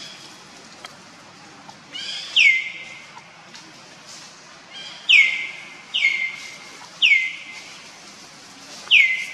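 An animal's high call, repeated five times at uneven gaps of one to two seconds. Each call drops sharply in pitch and then fades.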